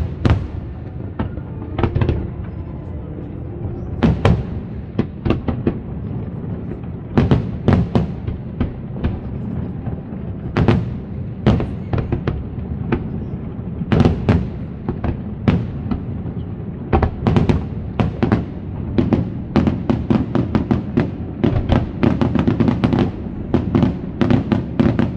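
Aerial firework shells bursting: separate loud bangs over a continuous low rumble, turning into a rapid volley of bangs over the last several seconds.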